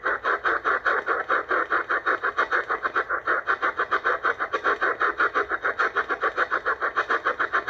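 ATS-25 DSP shortwave receiver's static in single-sideband mode, chopped on and off about six or seven times a second as the set mutes its audio on each 1 kHz tuning step while the dial is turned.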